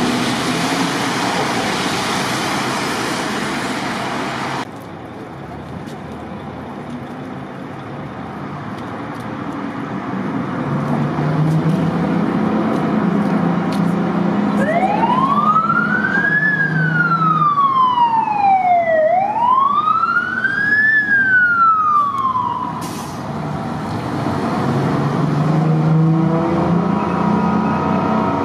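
Fire truck siren wailing, rising and falling twice before it cuts off, over the low running of the truck's engine. It comes after a steady rushing noise that stops suddenly about five seconds in.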